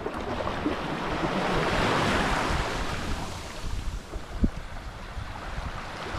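Small waves washing up the shore, one swell building and breaking about two seconds in before easing off, with wind on the microphone. A brief low thump about four and a half seconds in.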